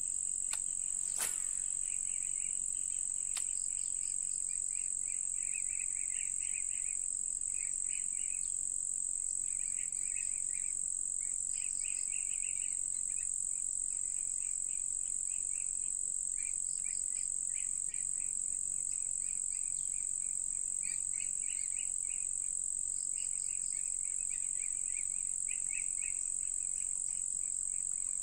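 Insects droning loudly in a steady, very high-pitched tone, with bursts of rapid pulsed chirping trills every second or two. There is a sharp click about a second in.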